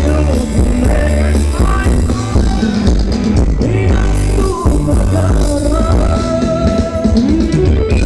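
Loud ramwong dance music from a live band: singing over guitar and bass, with a steady beat.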